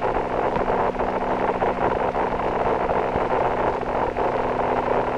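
Steady radio static on the spacecraft voice link: an even hiss with a low, constant hum beneath it.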